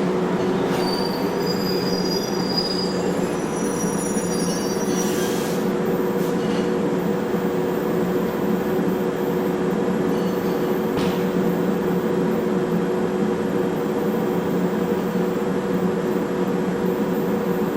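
A train running with a steady hum, with thin high wheel squeals in the first few seconds.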